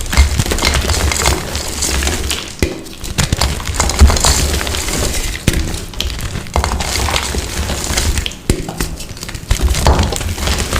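Coloured reformed gym chalk blocks being crushed: a dense, continuous run of crisp cracks and crunches.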